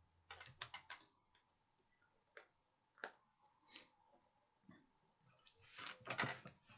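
Faint light clicks and taps over near silence. A quick run of three or four comes about half a second in, single clicks follow through the middle, and a denser, scratchier cluster near the end is the loudest part.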